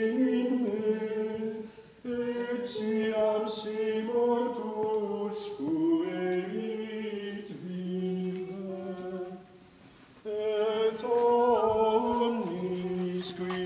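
Latin plainchant sung a cappella by male voices in unison, with two short breaths between phrases.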